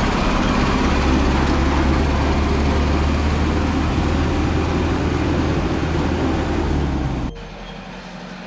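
Loaded Tata lorry's diesel engine running close by, a loud steady low drone that cuts off abruptly about seven seconds in.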